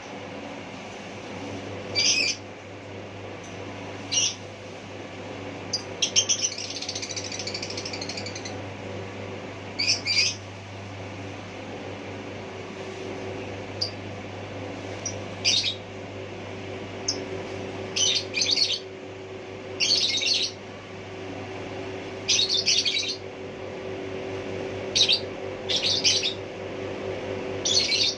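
A bird giving short, sharp chirps, one every second or two at an uneven pace, over a steady low hum.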